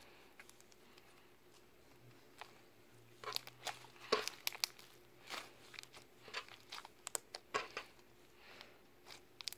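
Slime being squeezed and stretched by hand, giving a run of short, sticky clicks and crackles that starts about three seconds in and carries on to the end.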